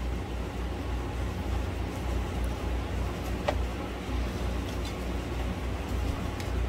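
Steady machine hum with a low, evenly pulsing rumble and an even rushing of air, with a faint click about three and a half seconds in.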